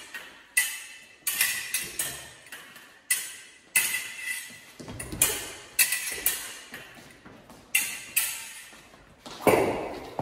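Steel foil blades striking each other in a repeated drill: sharp, ringing clicks, single or in quick pairs, about one every half second to second. A heavier, duller thump comes near the end.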